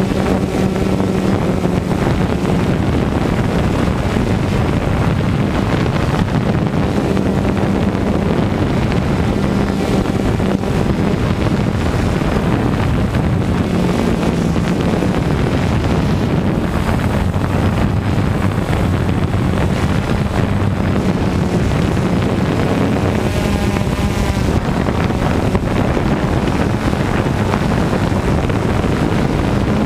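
Multirotor drone's motors and propellers buzzing steadily in flight, a hum whose pitch wavers slightly over a broad rushing hiss, with wind on the microphone.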